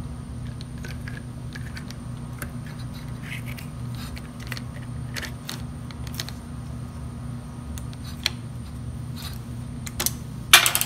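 Small metallic clicks and scrapes as a flap disc is fitted and tightened on an angle grinder by hand, the grinder switched off, over a steady low hum. A louder short clatter comes near the end.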